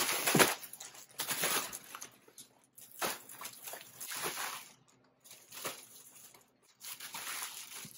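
Large plastic poly mailer bag rustling and crinkling as it is lifted and shaken, in irregular bursts with brief pauses.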